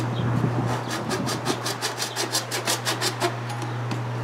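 Hand saw rasping across the plastic shell of a Magic 8 Ball in quick back-and-forth strokes, about five a second, easing off near the end, over a steady low hum.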